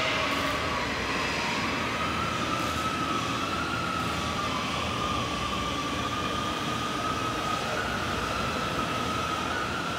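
Submerged arc welding machine's power source running idle: a steady mechanical hum with a high whine that wavers slightly in pitch.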